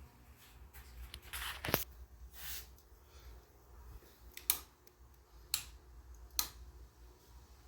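Quiet handling noise: a short brushing rustle about a second and a half in, then three sharp clicks about a second apart, over a low hum.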